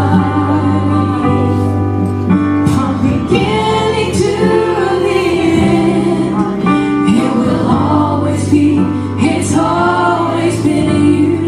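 A gospel band playing and singing a scripture chorus: several voices holding notes with vibrato over a steady bass line.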